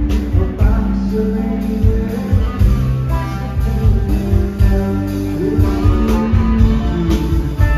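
Live rock band playing an instrumental passage: electric guitars over bass guitar and drums.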